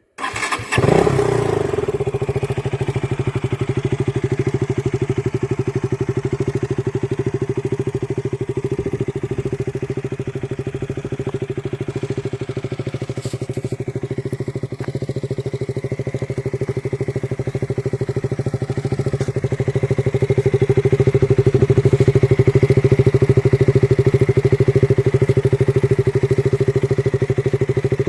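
KTM RC 200's single-cylinder engine starting up with a short rise in revs about a second in, then idling steadily with an even pulsing exhaust beat. It gets somewhat louder about twenty seconds in.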